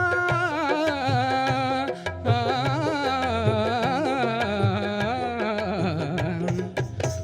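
Instrumental interlude of an old Telugu film song: a wavering melody line over a steady drum beat.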